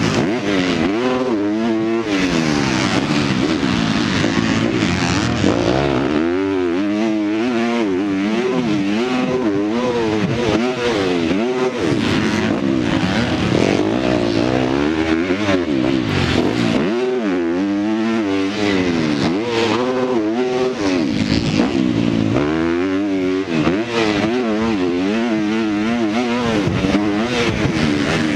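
A Honda four-stroke motocross bike's engine, heard from the rider's helmet camera, revving up and dropping back over and over as it is ridden hard through the gears around a dirt track, with a steady rush of wind noise.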